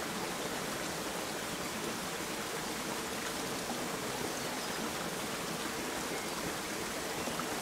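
Steady rush of a small stream running over rocks, an even, unchanging sound of flowing water.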